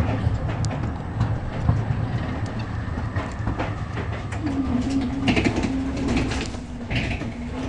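Metre-gauge tram wheels rumbling and clicking over rail joints and a switch, heard from inside a tram, as a second tram passes close alongside. A steady hum comes in about halfway through and fades near the end.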